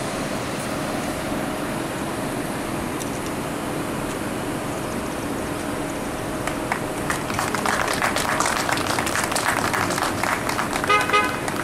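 Steady outdoor hum of idling cars, then clapping starts about six seconds in and runs for several seconds, with a short car horn honk near the end.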